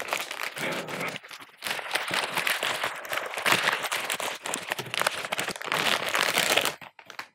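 Plastic anti-static wrap crinkling as it is handled and slid off a graphics card, with a dense crackle that stops shortly before the end.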